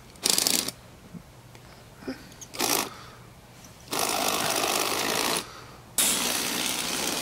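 Electric motor and gears of a LEGO Technic model train running in two short bursts, then for about a second and a half. After a brief pause it starts again and keeps running steadily as the locomotive drives along wooden track.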